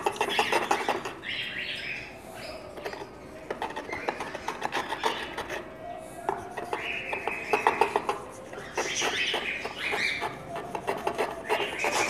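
A garlic clove being rubbed back and forth on a wet grinding stone in a clay bowl of water. The rasping strokes come in quick runs with short breaks.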